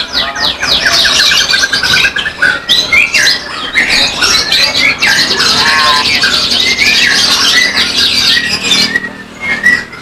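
Many caged songbirds singing at once: a dense, overlapping chatter of whistles and trills. Quick runs of rapidly repeated notes come in the first two seconds, and there is a brief lull near the end.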